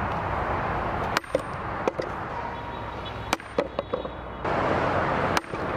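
Several sharp knocks, the loudest about a second in, a little past three seconds and near the end, with smaller ones between, over a steady rushing background.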